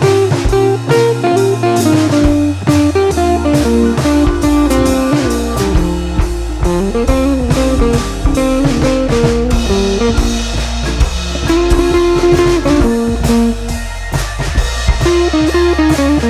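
Background music: a guitar melody over a steady drum beat.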